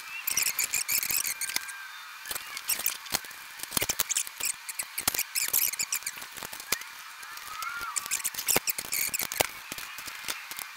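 Black sheet-metal bandsaw stand legs and braces being handled and set down on a worktable: irregular clanks, clicks and scrapes of steel parts knocking together.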